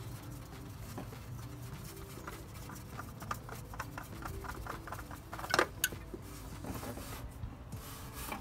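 Old spin-on oil filter being unscrewed by hand: a run of small clicks and rubbing as it turns on its threaded mount, with two sharper clicks about five and a half and six seconds in.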